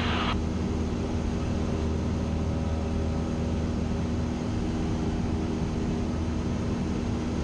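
Cessna single-engine light aircraft's piston engine and propeller droning steadily in level cruise, heard from inside the cockpit.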